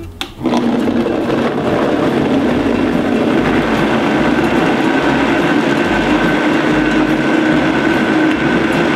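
Vitamix blender motor starting up about half a second in, then running steadily at high speed as it blends coconut meat with coconut water into coconut milk, a wooden spoon pushed through the lid working the thick mix down onto the blades.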